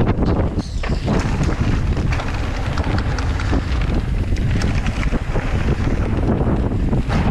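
Wind buffeting the microphone of a camera riding on a mountain bike at speed down a dirt trail, a steady loud rumble. Tyres run over dirt and loose stones underneath it, with many short clicks and rattles from the bike.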